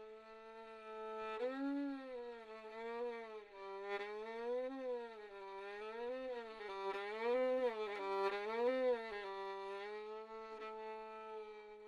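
Film score music: a bowed string instrument, heard as a violin, playing a slow, gliding melody that swells up and down. It settles into a long held note about three quarters of the way through.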